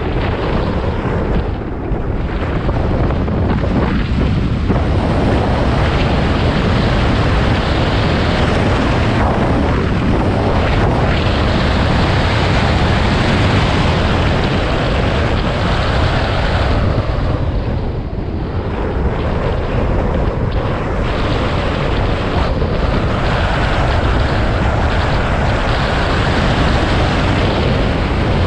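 Heavy wind buffeting the microphone of a hood-mounted camera on a Porsche Boxster driven hard through an autocross course, with the car's engine and tyre noise mixed underneath. It eases briefly a couple of times, about two seconds in and again past halfway.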